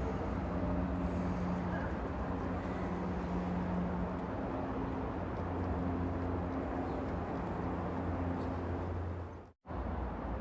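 Train running: a steady rumble with a low, even hum. The sound cuts out completely for a split second about nine and a half seconds in, then carries on.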